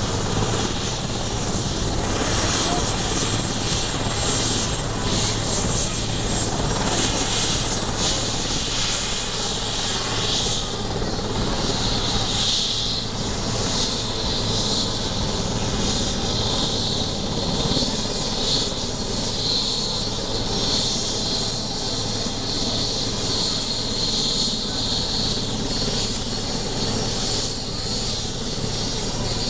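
Sikorsky S-61 Nuri helicopter running on the ground as it taxis, its twin turboshaft engines and turning rotor making a loud, steady noise. A high turbine whine dips slightly, then rises about nine seconds in and holds at the higher pitch.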